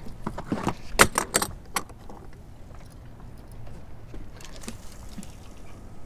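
Fishing pliers and tackle being handled: a quick run of sharp clicks and clinks about a second in, then a few faint ticks.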